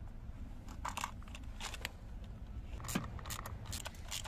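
Hand tools clicking and clinking against metal and plastic as a part is fitted and tightened with a ratchet on an extension. The sound is a series of short, sharp clicks, with a quick run of them about three seconds in.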